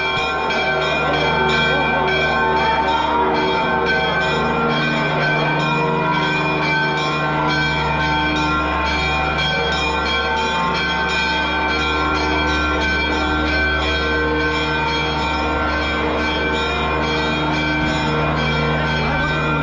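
Church bells ringing continuously in quick, regular strokes, their tones overlapping into a sustained clangour.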